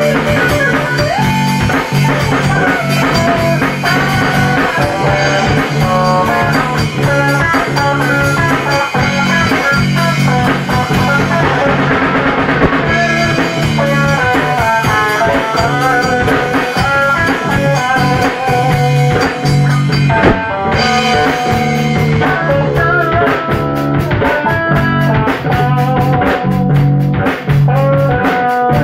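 Rock band playing live with guitar and drum kit, an instrumental passage without vocals.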